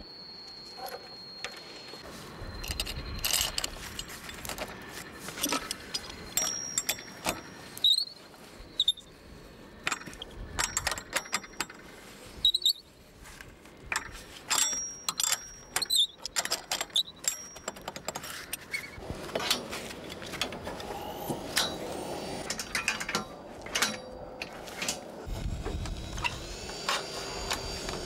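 Irregular clicks, taps and light metallic clatter of metal roofing brackets, fasteners and rails being handled and screwed onto corrugated fibre-cement roof sheets, with a few brief high squeaks.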